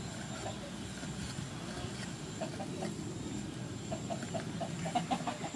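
Chickens clucking in quick runs of short notes, a few a second, busiest and loudest near the end, over a steady low background hum.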